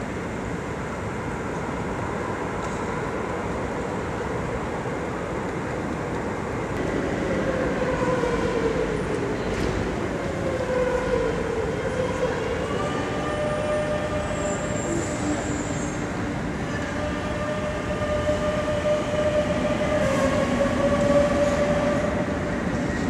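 Metro de Madrid 9000-series electric train pulling out of an underground station over a steady rumble. There are falling tones about a third of the way in, then from about halfway the traction motors' whine rises in pitch in several steps as the train speeds up.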